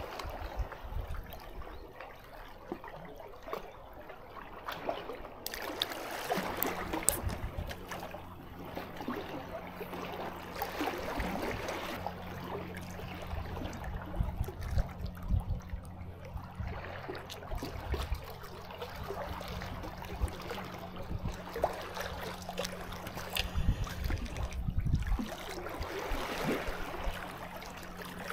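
Sea water sloshing, trickling and gurgling, swelling louder twice as waves wash in. A steady low hum joins about six seconds in.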